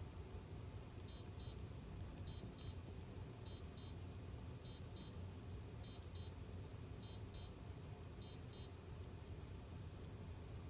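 Sony Aibo ERS-111 robot dog giving short high electronic beeps in pairs, repeating about every 1.2 seconds, seven pairs in all, then stopping, over a faint low hum.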